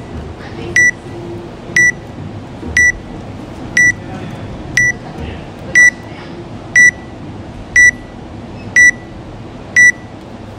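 Workout countdown timer beeping: ten short, high electronic beeps, one a second, growing louder from about six seconds in as the seconds run down to the start of the workout.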